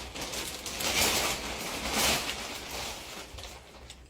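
A plastic vacuum-storage bag rustling and crinkling as it is handled. The noise swells about a second in and again at about two seconds.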